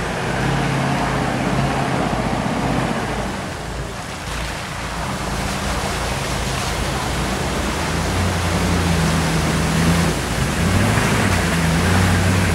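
Hummer H1 fording a creek: its engine runs steadily while water rushes and splashes around the wheels. The engine grows louder in the second half as the truck comes closer.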